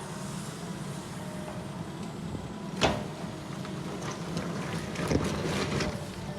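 Heavy construction machine's engine running steadily, with a sharp metallic clank just under three seconds in and a few lighter knocks near the end.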